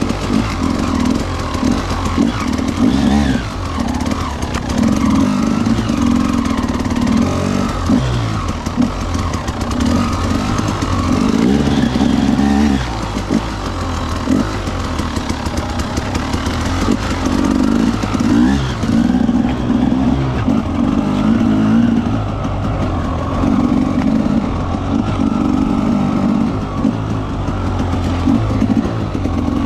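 Husqvarna TE300's carbureted 300 cc two-stroke single-cylinder engine, heard close up from on the bike as it is ridden off-road. The revs keep rising and falling with the throttle.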